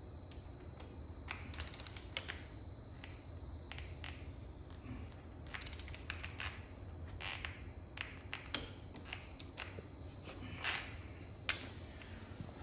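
Hand tools and metal parts being handled during a motorcycle wheel change: scattered light clicks and clinks with a few short scrapes, the sharpest click near the end, over a low steady hum.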